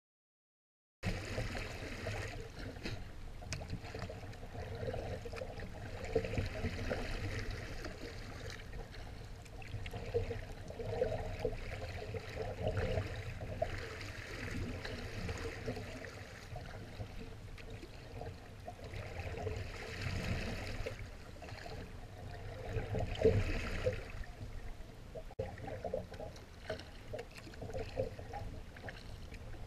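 Water lapping and splashing against the bow of a moving kayak, swelling and easing every few seconds over a steady low rumble; it starts about a second in.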